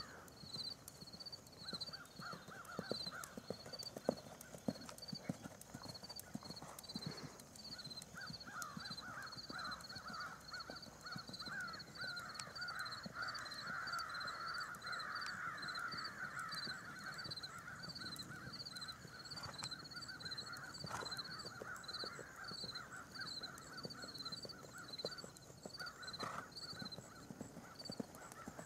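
A horse's hoofbeats thudding softly on sand arena footing as it canters and trots. Behind them, a high chirp repeats about twice a second, and a buzzier trill swells through the middle and then fades.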